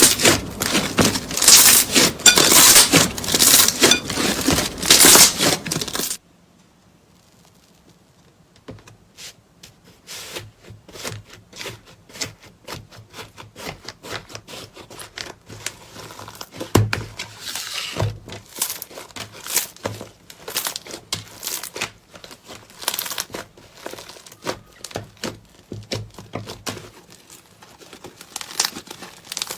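Slime being squeezed, pressed and poked by hand, giving dense, loud crackling clicks and pops for about six seconds. The sound then cuts off suddenly and gives way to quieter, scattered sticky clicks and crackles.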